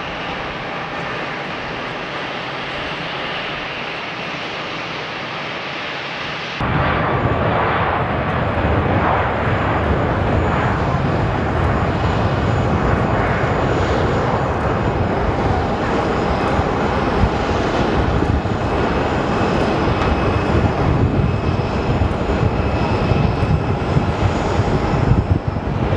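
Jet airliner engines at takeoff thrust, a steady broad rushing sound. About a quarter of the way in it changes abruptly to a louder, deeper sound with strong low rumble.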